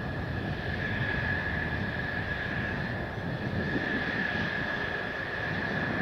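Mitsubishi F-2 fighter jets' F110 turbofan engines running at idle: a steady high whine over a low rumble.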